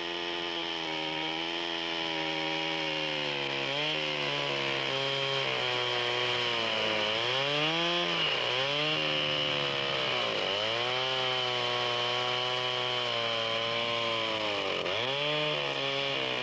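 Chainsaw running steadily, its pitch dropping and picking back up several times as the engine bogs under load while cutting.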